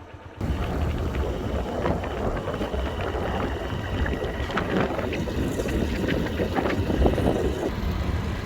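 Wind buffeting the microphone over the rumble of a moving vehicle, starting suddenly about half a second in.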